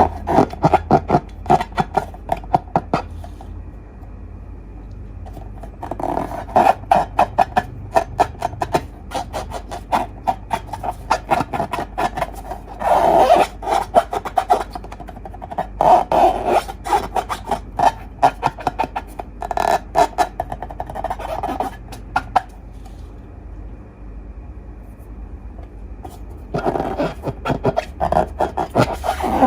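Hands working slime: rapid sticky crackles and small pops in spells of a few seconds, with short quieter pauses between.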